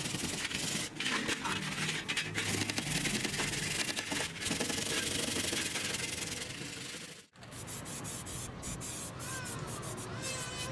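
Hand sanding, a scratchy rubbing of abrasive on a part. It stops abruptly about seven seconds in, then resumes a little softer.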